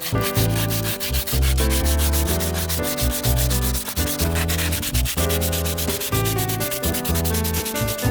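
Background music: held bass and chord notes changing about every half second, over a fast, even scratching rhythm.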